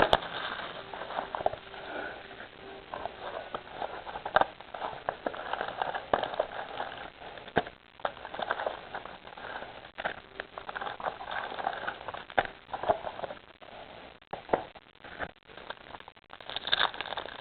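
Hands opening a trading-card box and its packaging: irregular rustling and scraping, with many small sharp clicks and ticks.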